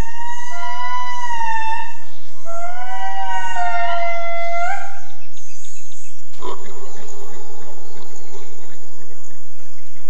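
Indris singing their territorial song: several voices wailing together in long, siren-like notes that glide up and down and overlap. About six seconds in, the calls give way suddenly to forest ambience with a steady high-pitched drone and a faint low pulsing.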